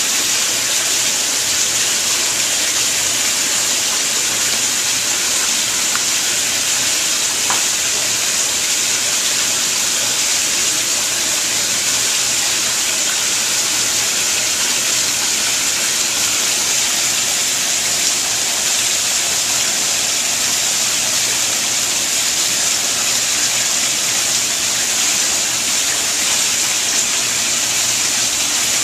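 Steady rush of water pouring and splashing into a koi pond.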